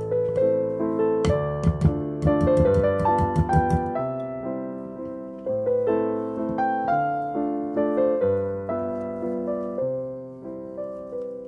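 Background piano music, a gentle melody of single notes, with a busier run of quick notes from about one to four seconds in.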